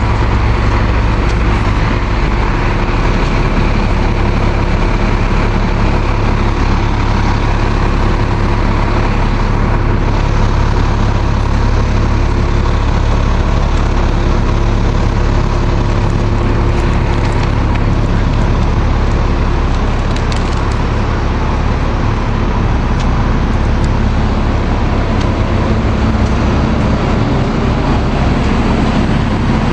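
Diesel transit bus engine idling steadily, a constant low hum with steady tones over the running noise.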